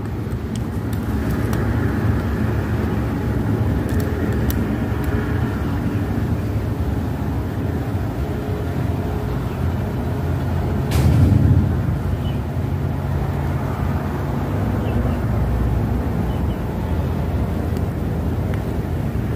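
Steady low background rumble with a hiss over it, swelling briefly about eleven seconds in, with a sharp click at that moment.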